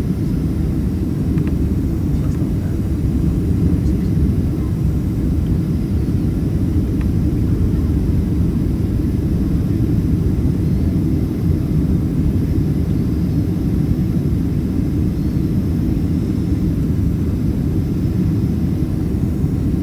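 Steady cabin noise inside a Boeing 767-300ER airliner in flight on approach: engine and airflow rumble, deep and even throughout.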